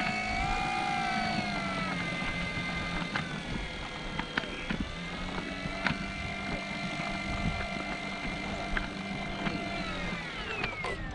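Electric motor and propeller of a Flex Innovations RV8 G2 60E model airplane whining as it taxis on grass. The pitch rises as the throttle opens at the start, holds steady, then falls away as it throttles back near the end.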